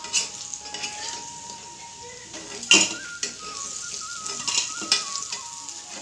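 Lentil fritters sizzling in hot oil in a black kadai, with a metal spatula scraping and clanking against the pan as they are scooped out; the loudest clank comes a little before halfway.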